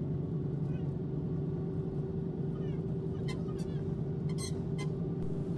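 Steady low engine and road drone heard from inside a moving vehicle, with a few faint high chirps and light ticks in the second half.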